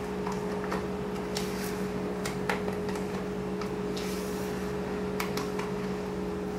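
Silicone spatula stirring thick cake batter in a plastic bowl: irregular soft clicks and scrapes as it knocks and drags against the bowl, over a steady low hum.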